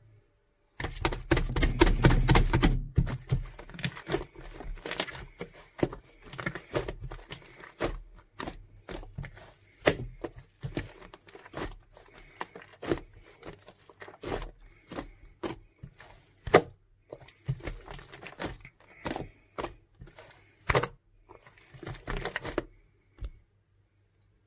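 Irregular crackling and crinkling handling noises, dense and loudest for the first couple of seconds, then continuing as scattered clicks and crackles.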